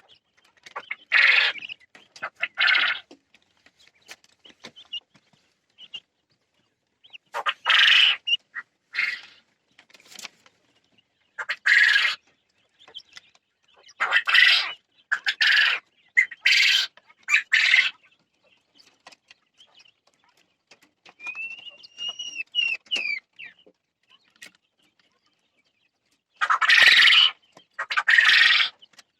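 Jumbo Japanese quail calling: short, harsh calls at irregular intervals, often in twos and threes, with a brief series of thin whistled chirps partway through.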